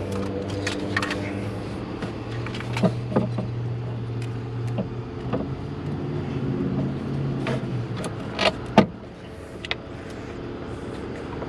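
A steady low mechanical hum runs under scattered sharp clicks and clanks of tools and metal parts as hose clamps on a cold air intake are worked. The loudest click comes about nine seconds in, and the hum drops soon after.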